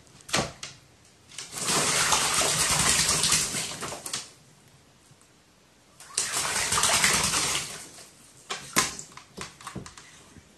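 A pet crow bathing, splashing in water with its wings in two bouts of a couple of seconds each, followed by a few sharp taps near the end.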